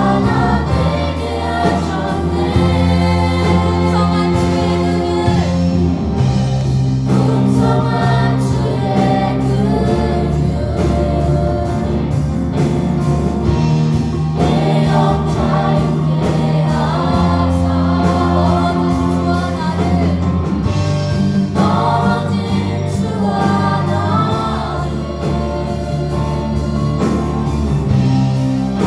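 A group of singers performing a Christian worship song with a live band, with steady bass, chords and a regular drum beat.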